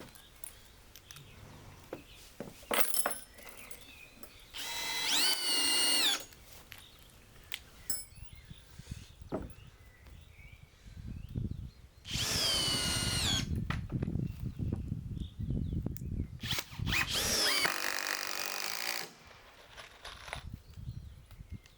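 Cordless drill running in three bursts, each a high whine that rises in pitch, holds briefly and winds down, as when driving screws into wood. Quieter knocks and handling noises fall between the bursts.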